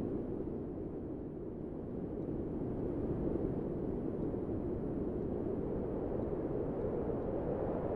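Steady low rumble of wind buffeting the microphone of a camera on a moving motorcycle, with road and engine noise blended in and no distinct engine note.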